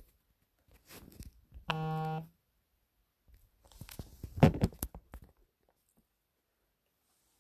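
Handling noise from a phone being moved and set in place: rustling, clicks and bumps, with a loud knock about four and a half seconds in. About two seconds in comes a short, steady buzzing tone lasting just over half a second.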